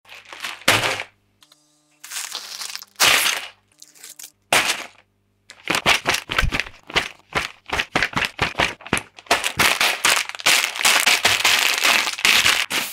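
Clear plastic parts bags of building bricks crinkling and an instruction booklet's paper pages rustling as they are handled: separate bursts at first, then rapid, near-continuous crackling over the second half.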